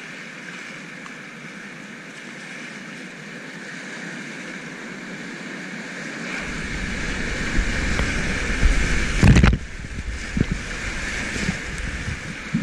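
Whitewater rapids rushing steadily, building louder about halfway through as the kayak runs into the waves. Waves slap and splash against the kayak in a string of sudden loud hits, the biggest just after nine seconds in.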